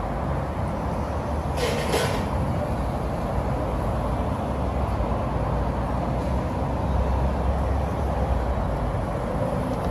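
Steady noise of street traffic, cars and motorcycles, with a short hiss about two seconds in.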